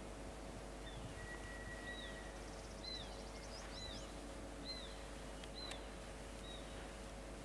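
A bird calling over a faint steady hum: about seven short, high notes that sweep downward, roughly one a second, with one longer steady whistle near the start.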